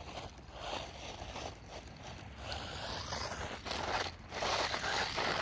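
RC car driving across loose dirt and gravel, its tyres crunching and scraping over the stones. It grows louder in the second half as the car comes close, with a brief drop just after the four-second mark.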